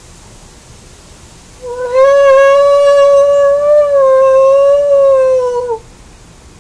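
Imitation wolf howl: one long call lasting about four seconds, starting about one and a half seconds in. Its pitch holds nearly level and dips as it ends. A steady hiss of background noise runs underneath.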